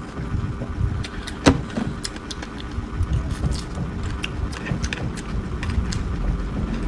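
Close-miked eating sounds: chewing and mouth noises over a low rumble, with many small irregular clicks and one sharper click about a second and a half in.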